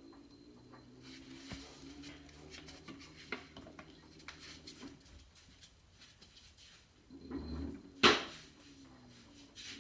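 Washing machine running with a low motor hum, its drum rattling and clinking, and one loud knock about eight seconds in.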